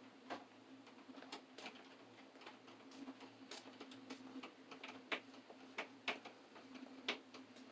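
Faint, irregular clicks and taps from hands and tools working wire inside a metal breaker panel, with a few sharper ticks about five to seven seconds in. A steady low hum runs underneath.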